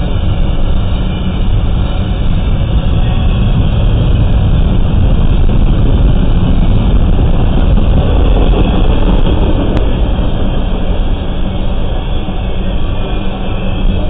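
Double-stack intermodal container train rolling past: a steady, deep rumble of freight-car wheels on the rails.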